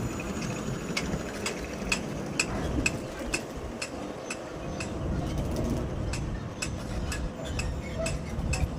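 Regular sharp metallic clicks, about two a second, over a low rumble and a faint steady hum.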